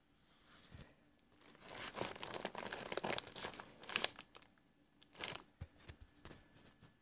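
Plastic snack wrappers crinkling and rustling as they are handled, an irregular crackle for about three seconds starting a second and a half in, then one shorter burst.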